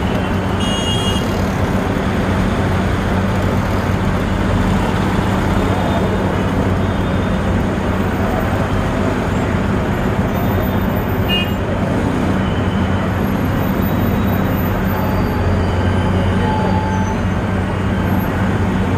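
Dense road traffic: vehicle engines running with a steady low hum, and short horn toots about a second in and again about halfway through.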